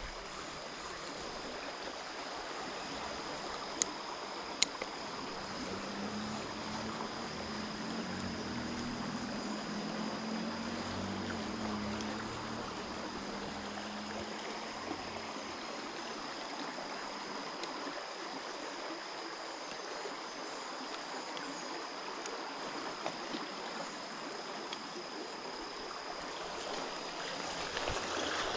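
Shallow creek water running steadily, with two small clicks about four seconds in.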